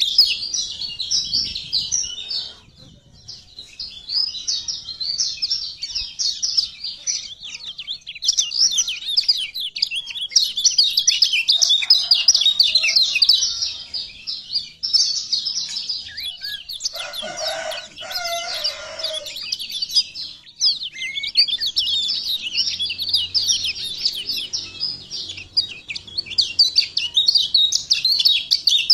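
Kecial kuning (lemon-bellied white-eye) singing a fast, continuous high twittering song of rapid short notes, with a brief pause about three seconds in. A separate lower-pitched call lasting about two seconds sounds over it some 17 seconds in.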